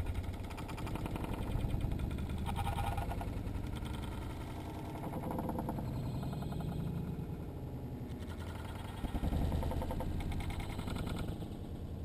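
House sparrows chirping and fluttering at a seed feeder, heard slowed down along with the 120 fps slow-motion footage, so the sound comes out as a deep, drawn-out, wavering rumble that is pretty creepy. It swells louder twice, briefly, near the start and again later on.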